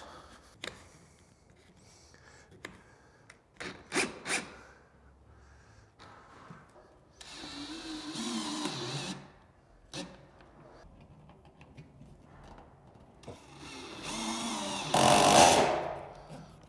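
Cordless drill driving neoprene-washer screws through the back of a metal parapet coping cap, in two runs: a short one about halfway through and a louder, longer one near the end. A few light knocks come before the first run.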